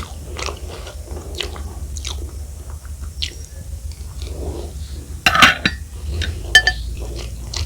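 Close-miked chewing of picung (keluak) fried rice: wet mouth clicks and light crunching, with two louder sharp clicks near the end.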